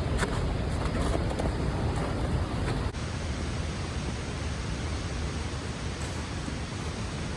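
Waterfall swollen with spring snowmelt: a steady roar of rushing water. The sound shifts abruptly about three seconds in.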